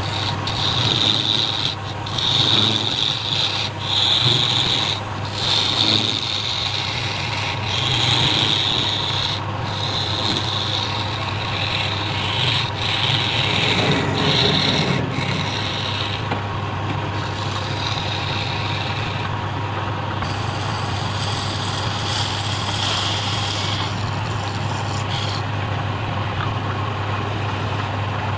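A hand-held steel chisel scrapes and cuts a spinning wooden workpiece on a lathe, over the lathe's steady low hum. For the first half the cutting comes in short strokes about a second apart, then it turns into a more continuous scraping.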